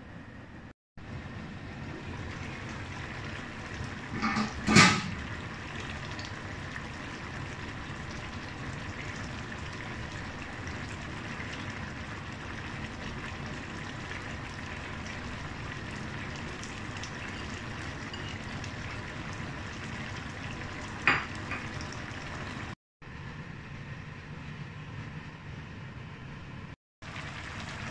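Braised fish broth simmering in a wok on a gas stove, a steady hiss and bubble. A loud sharp knock comes about five seconds in, and a lighter clink about 21 seconds in.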